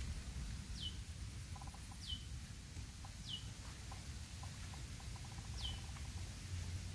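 A bird repeating a short, sharply falling whistle four times, roughly once every one to two seconds, over a low outdoor rumble.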